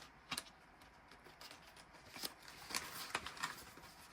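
Faint rustling and a few light taps and clicks of paper cash and envelopes being handled while the bills are counted.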